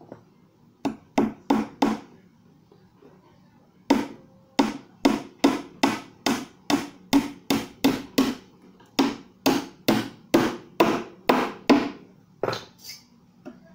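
Hammer driving nails into 3/4-inch plywood: a quick group of four blows about a second in, then after a pause a steady run of about twenty blows, roughly two and a half a second, with two last blows near the end.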